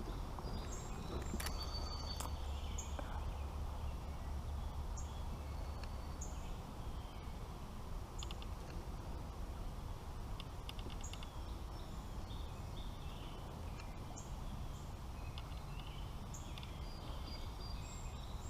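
Outdoor creekside ambience: a steady low rush with many short, high bird chirps and calls scattered throughout.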